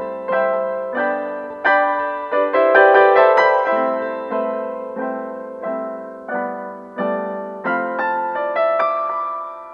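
Background piano music: notes and chords struck one after another, each ringing and fading.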